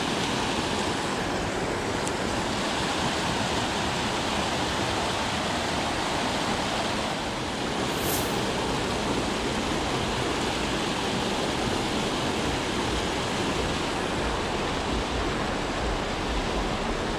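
Water pouring over a low-head dam's concrete spillway: a steady, even rushing.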